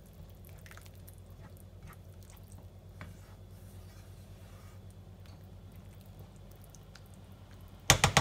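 Silicone spatula stirring a thick tomato and vegetable sauce in a non-stick frying pan: soft wet squishing and faint clicks over a low steady hum. Near the end comes a quick run of loud sharp knocks of the spatula against the pan.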